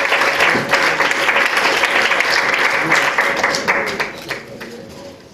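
Audience applauding, the clapping thinning out and fading about four seconds in.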